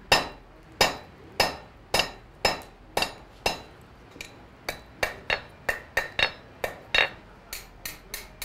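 Blacksmith's hand hammer striking hot iron on an anvil: steady ringing blows about two a second, a short pause about four seconds in, then a quicker run of blows.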